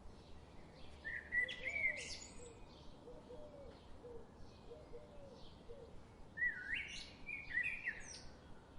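Birds singing: two loud, quick warbling phrases, about a second in and again near the end, over faint scattered chirps. A lower, softer call repeats several times in between.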